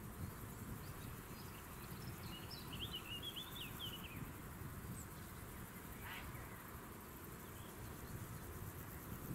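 A bird chatters in a quick run of high chirps about three seconds in, over a low, steady rumble of wind and the distant jet engines of a taxiing Boeing 747-8 freighter.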